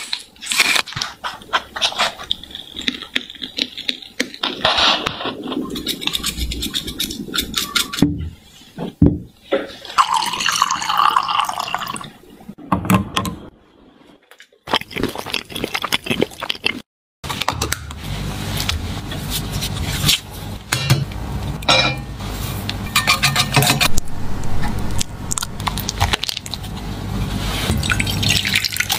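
Close-miked kitchen food-prep sounds: utensils clicking, scraping and clinking, and liquid being poured. A short break comes partway through, after which a steadier low hum runs under the clicks.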